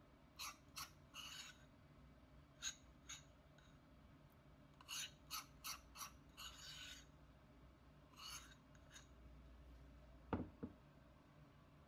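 Metal spoon scraping the inside of a ceramic bowl in a series of short strokes while scooping out a runny filling, with two light knocks near the end.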